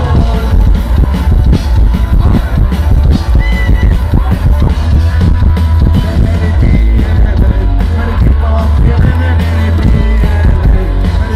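Punk rock band playing live through a festival PA: a male singer singing over distorted guitar, bass and drums. The sound is loud and bass-heavy, as picked up by a phone's microphone in the crowd.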